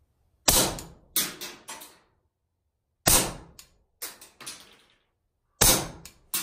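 Suppressed .22LR shots from a Beretta 21A pistol with a Gemtech Alpine suppressor, fired about two and a half seconds apart, with a fourth just at the end. Each shot is a sharp crack that rings briefly in the tight shooting bay and is trailed by a few fainter clicks. Even suppressed it is still a little loud.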